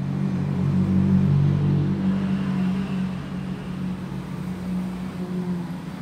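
A vehicle engine running with a low, steady hum that swells over the first two seconds and then slowly fades.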